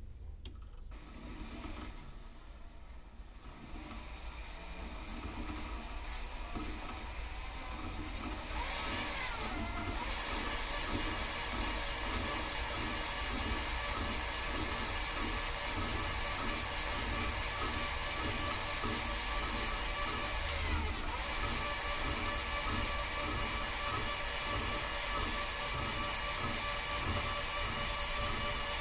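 A machine running steadily with a fast, regular ticking rattle. It grows louder over the first few seconds and steps up louder about eight seconds in.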